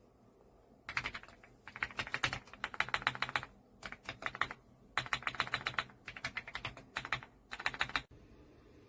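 Typing on a RedThunder K95 gasket-mounted mechanical keyboard: quick runs of key clicks in several bursts with short pauses between them, stopping abruptly about a second before the end.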